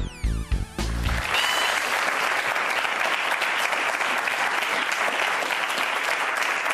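A short musical jingle ends about a second in, then a studio audience claps steadily.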